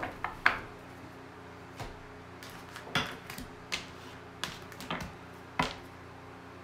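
Tarot cards being gathered up and handled on a table: a string of separate light taps and clicks, irregularly spaced, with the sharpest about half a second in and again near the end.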